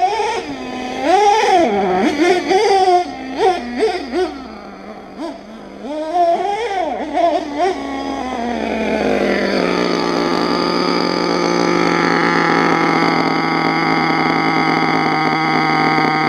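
Nitro engine of an RC monster truck with a dual exhaust, revved in uneven throttle blips with the pitch swinging up and down, then settling about nine seconds in to a steady high idle.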